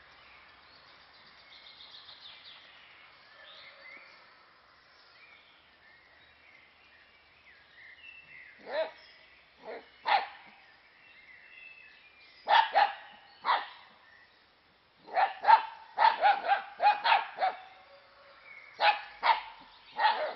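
Dachshund barking in short, sharp, high barks: a few scattered ones from about nine seconds in, then a quick run of eight or so, and a few more near the end.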